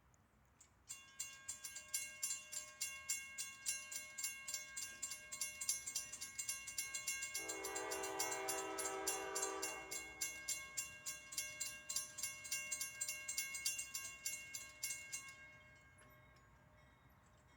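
Railroad grade crossing bell ringing with rapid, regular strikes, starting about a second in and cutting off near the end. In the middle, a locomotive horn sounds one long blast of about three seconds.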